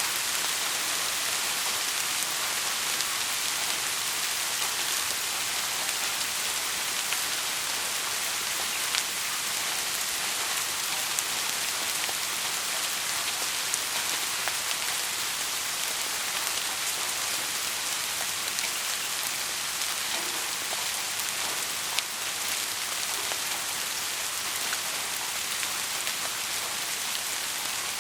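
Steady heavy rain falling and pattering on a surface, an even hiss with scattered sharper drop ticks.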